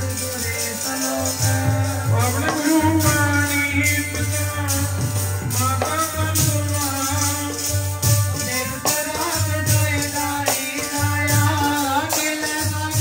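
Devotional kirtan music: sustained harmonium tones over a steady beat of jingling, rattle-like percussion and low drum thumps.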